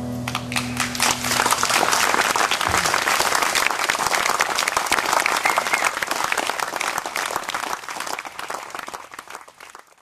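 An audience clapping and applauding at the end of a song, with the last acoustic guitar chord ringing out under the first couple of seconds. The applause thins and fades away near the end.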